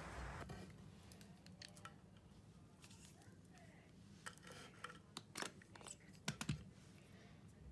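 Faint, scattered light clicks and taps, as of small hard objects being handled, the loudest a little after six seconds in, over quiet room hiss.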